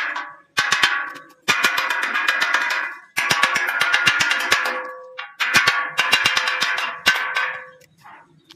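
Claw hammer rapidly tapping fresh weld beads on a steel tube roof truss, chipping off the welding slag, with the hollow steel ringing after the strikes. It comes in about five runs of quick taps, roughly seven a second, with short pauses between them.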